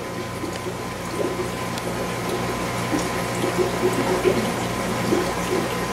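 Aquarium water bubbling and gurgling from air bubbles rising up a tube in the tank, over a steady low hum.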